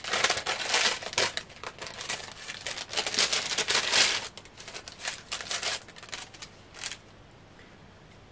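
Crinkling and rustling of a small striped gift bag being opened and handled, in irregular bursts that are loudest in the first four seconds and die down to quiet near the end.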